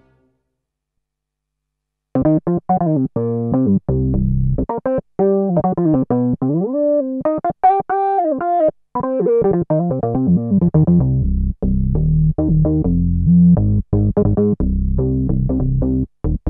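Novation Peak synthesizer playing its "Old Skool Funk" factory preset, starting about two seconds in: short staccato notes and stabs, a phrase whose pitch glides up and down in the middle, then a choppy bass-heavy riff.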